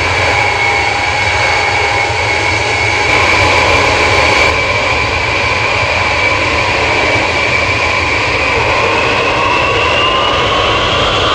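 Ilyushin Il-62's four rear-mounted jet engines running with a steady high whine at low power as the airliner taxis onto the runway. About nine seconds in, the whine starts rising in pitch as the engines begin to spool up for the takeoff run.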